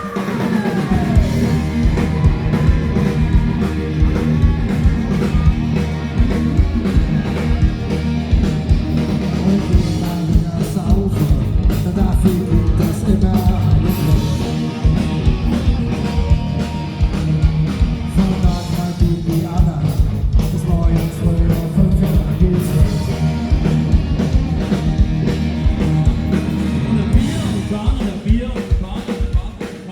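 A band playing a rock song live, with drums, electric guitar, bass and singing.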